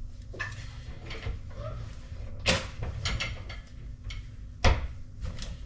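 Kitchen cupboard doors and groceries being handled: two sharp knocks about two seconds apart, with lighter clicks between.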